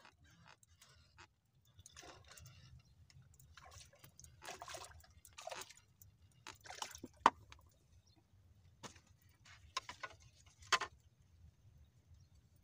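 Turned wooden bait cups being handled on a bamboo rod rack: scattered knocks and clicks with short rustling in between. A single sharp click about seven seconds in is the loudest, with another near the end.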